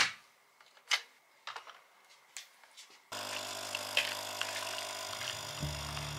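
Capsule coffee machine being loaded: a few sharp clicks and knocks as the capsule goes in and the lever closes. About three seconds in, the machine's pump starts abruptly with a steady buzzing hum while coffee pours into the mug, its low hum growing stronger near the end.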